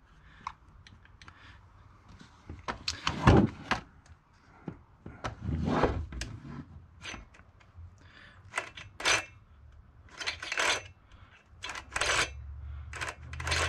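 Irregular clicks, knocks and rattles of plastic and metal as a new Pinkway PKW-63ACK chainsaw is handled and checked by hand, with its chain and chain brake being worked. The loudest knock comes about three seconds in.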